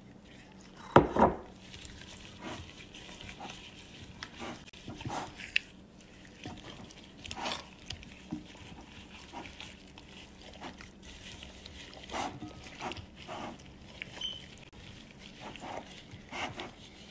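A gloved hand rubbing a wet spice marinade into raw chicken pieces in a glass bowl: irregular squelching and slapping strokes, with two loud knocks about a second in.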